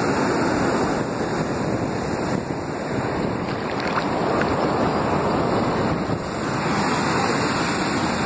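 Breaking surf foaming and washing around a phone held in the swash: a loud, steady rush and fizz of churning seawater right at the microphone.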